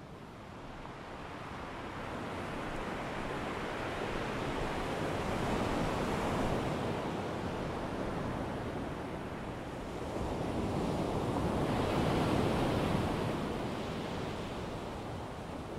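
Ocean surf: a steady rush of breaking waves that swells twice, about six seconds apart.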